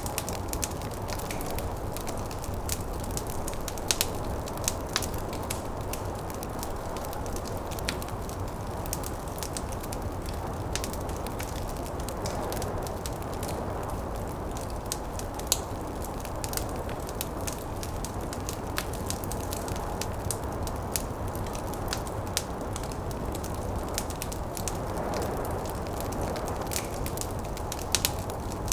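Wood fire crackling, with irregular sharp pops, over a steady, low rush of snowstorm wind.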